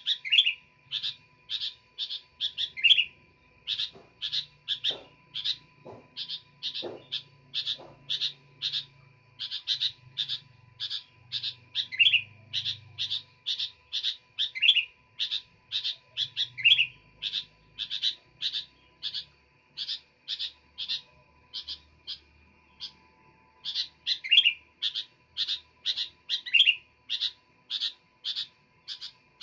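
Sooty-headed bulbul (kutilang) calling without pause: a quick, even string of short chirps, about two to three a second. Every few seconds a downward-sliding note breaks in.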